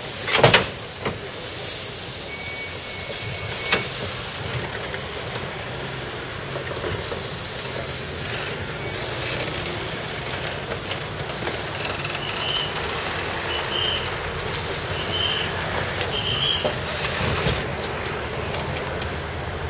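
Narrow-gauge steam locomotive hissing steam steadily, with two sharp knocks, one near the start and one about four seconds in.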